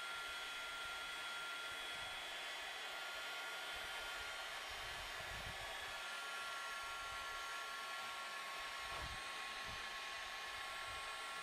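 Corded heat gun running steadily, a fan's whir with a thin, steady high whine, as it is held over a hardwood tabletop to soften and lift old paint.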